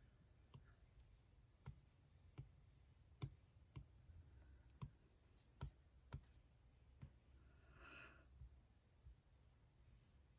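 Faint, irregular taps of a stylus on a tablet screen, a dozen or so spread out, with a soft breath about eight seconds in.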